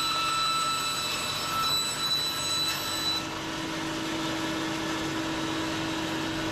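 Bandsaw running and cutting lengthwise through a running shoe's foam midsole and rubber outsole, a steady whine and hum. About halfway through the higher whine drops away and a lower steady hum takes over.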